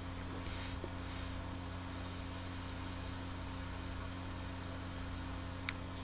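Air hissing through a vape pen as it is drawn on: two short puffs, then one long steady draw of about four seconds that stops suddenly.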